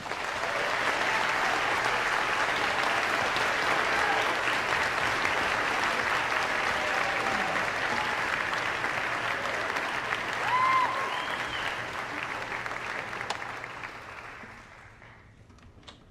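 Audience applauding, steady at first, then dying away near the end.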